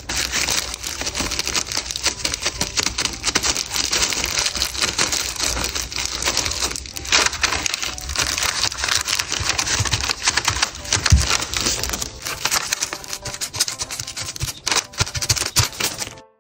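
Thin disposable plastic gloves and parchment paper crinkling and rustling as hands roll and press cookie dough flat: a dense, unbroken run of crackly clicks with a few soft knocks, cutting off suddenly near the end.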